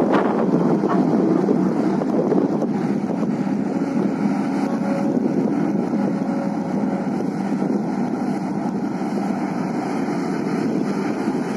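XCMG XE140 crawler excavator's diesel engine running steadily under load as it digs sand and swings its loaded bucket over to a tipper truck, with a short knock right at the start and a faint whine in the middle. Wind buffets the microphone throughout.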